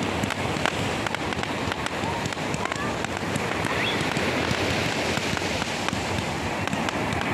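Consumer fireworks going off: a dense, steady crackle of many small pops, with a few short rising whistles from rockets climbing.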